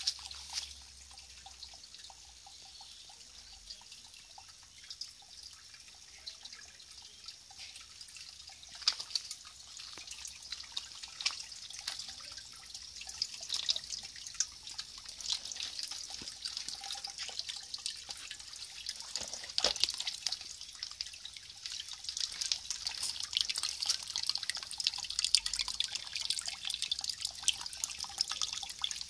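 Pond water trickling and dripping with small splashes. It is faint at first and grows louder over the second half, as water spills over the edge into the koi pond's skimmer, which is built from 5-gallon buckets.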